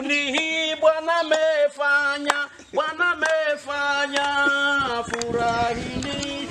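A man singing a melody in long held notes that step up and down in pitch.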